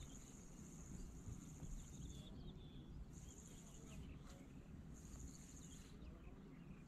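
Faint high-pitched insect trill in repeated phrases of one to three seconds with short gaps between them, over a low outdoor rumble, with a few faint bird chirps.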